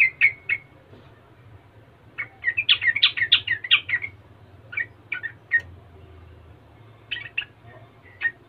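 Yellow-vented bulbul singing in short phrases of quick, bubbly chirping notes. The longest run starts about two seconds in and lasts about two seconds, with briefer bursts before and after.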